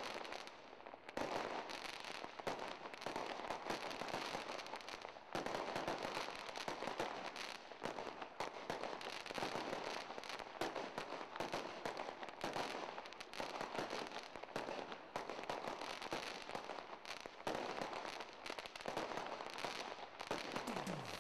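Fireworks going off: a dense, continuous crackle of many pops and bangs, getting louder about five seconds in.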